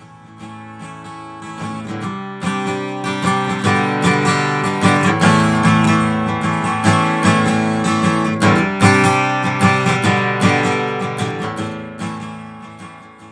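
Outro music with a strummed acoustic guitar, swelling in over the first seconds and fading out near the end.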